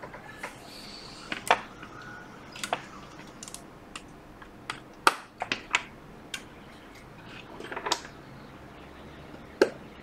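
Irregular small clicks and taps, a dozen or so, from hands fitting connectors and the charging cable on an opened iPad Pro; the sharpest come about a second and a half in, about five seconds in and near the end.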